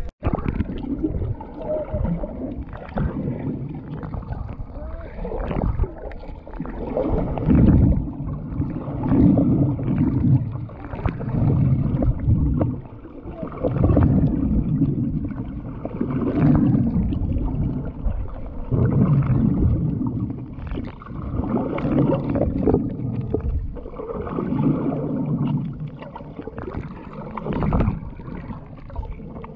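Muffled underwater sound of water moving around a submerged camera, swelling and fading about every two seconds.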